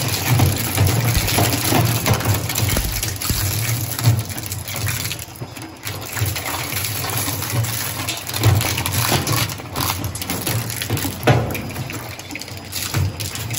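Twin-shaft plastic shredder's cutter discs chewing hard plastic scrap: a continuous crunching rattle broken by irregular sharp cracks, over a steady low hum.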